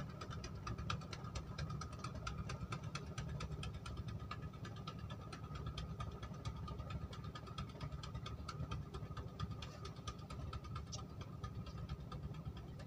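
A small engine running steadily: a low even rumble with a faint constant whine and fast light ticking.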